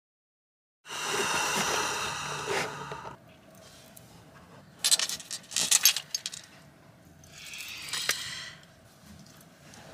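Close handling noise as someone settles in front of the microphone: a stretch of rustling, then a quick run of sharp metallic clinks and jingles about five seconds in, the loudest part, and another short rustle with a click near the end.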